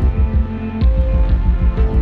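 Background music: a fast, even pulsing bass under held steady notes, the pulse briefly dropping out about half a second in.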